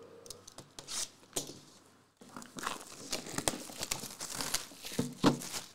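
Clear plastic shrink wrap on a trading-card box crinkling and crackling as it is cut open and peeled off. The crinkling is lighter at first, pauses briefly, then grows dense, and a sharper tap comes near the end.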